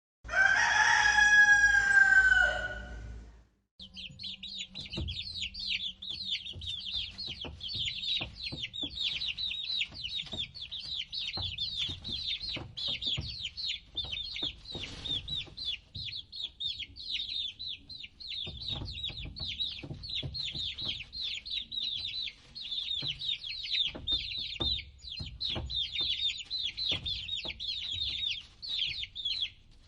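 A rooster crows once, loud, for about three seconds. Then a crowd of chicks peeps continuously in a dense high-pitched chatter, with scattered light taps.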